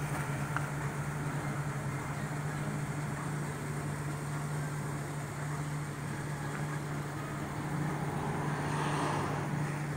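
Parked Kona Ice shaved-ice truck running, a steady low mechanical hum.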